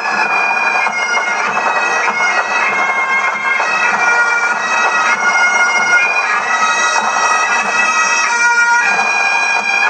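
A pipe band of Highland bagpipes playing a tune in unison, the melody stepping from note to note over the steady drones.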